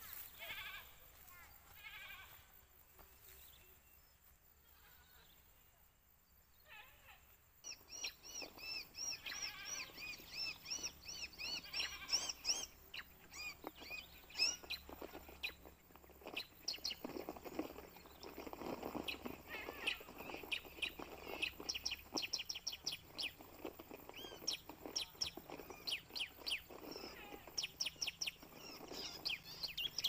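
Small birds calling: faint chirps at first, then from about eight seconds in a fast, dense run of high, quick, repeated calls that overlap one another.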